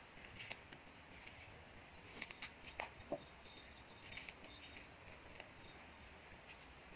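Sweet orange peel being torn off by hand: faint crackling and small snaps, with a few louder ones between two and three seconds in.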